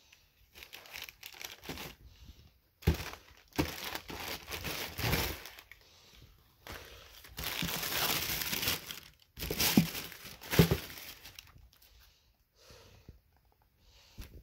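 Tissue paper in a shoebox crinkling and rustling in irregular bursts as it is handled, with a few sharp knocks.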